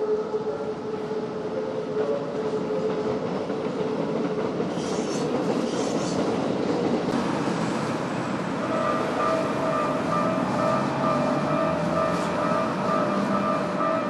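A Keikyu Daishi Line electric train runs across a level crossing, its wheels on the rails making a building rumble, with a brief high squeal about five seconds in. The crossing's warning bell rings in a quick, even pulse, loud and clear from about nine seconds in.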